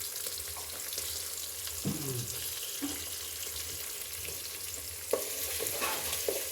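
Food sizzling as it fries in hot oil in a pan: a steady hiss, with a sharp click about five seconds in.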